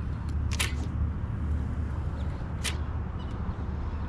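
A steady low rumble with two short, sharp snaps or swishes, one about half a second in and one near the three-second mark.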